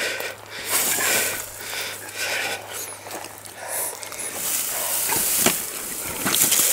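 Hard, quick breathing close by, a short hiss of breath coming roughly every second, with rustling in dry brush and a couple of sharp clicks about five seconds in.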